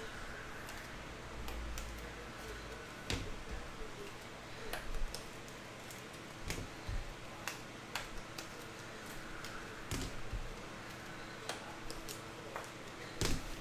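Scattered light clicks and taps of baseball cards being handled and slid into rigid plastic toploaders.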